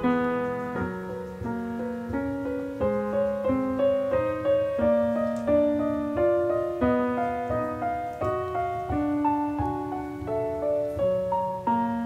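Slow, gentle solo piano music, notes struck one after another and left to ring.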